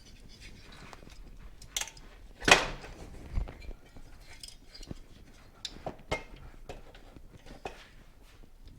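Metal clinks and knocks of motorcycle parts and tools being handled as components are checked and worked loose, with one loud sharp knock about two and a half seconds in and a smaller one about a second later.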